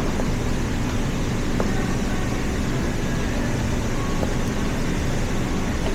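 Steady low rumble of vehicle or road noise, with a couple of faint ticks.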